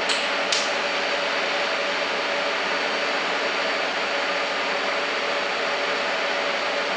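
TIG welding arc burning steadily at 200 amps from a water-cooled torch: an even hiss with a faint steady hum, over the running welder and its coolant cooler. A sharp click or two as the arc strikes, just after the start.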